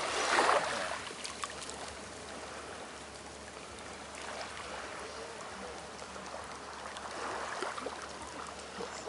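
Shallow surf washing over sand at the water's edge, with a louder wash about half a second in and a smaller swell near the end.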